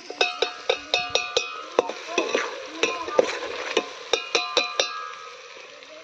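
Metal spatula clanking and scraping against a metal cooking pot while chicken is stirred, the pot ringing briefly after each strike. The strikes come in quick runs and stop about five seconds in.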